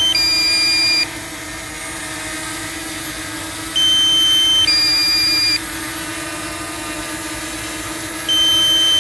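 DJI Mini 2 SE drone hovering, its propellers giving a steady hum, while a two-tone warning beeps, a higher tone then a lower one, repeating about every four and a half seconds: the low-battery alarm.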